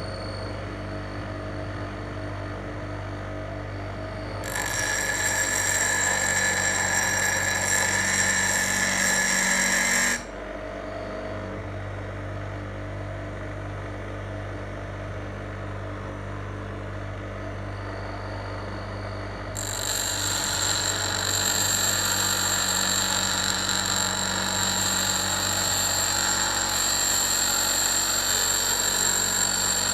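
Bench grinder's stone wheel running with a steady motor hum, while a steel knife blade is pressed against it to grind the bevel: a loud grinding hiss from about four seconds in until about ten seconds, then again from about twenty seconds in, each pass starting and stopping sharply.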